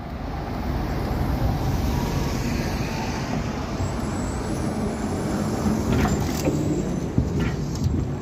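City street traffic with trolleybuses passing close by: steady road and motor noise that swells over the first second, with a few sharp clicks about six seconds in.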